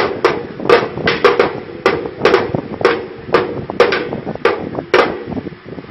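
Small yellow plastic toy drum being beaten by a toddler: quick, irregular strikes, about three a second, each with a brief ringing tone, stopping about five seconds in.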